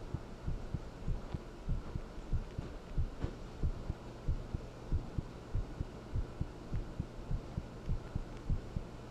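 Human heartbeat recorded up close: a steady lub-dub at about one and a half beats a second, with a low steady hum underneath.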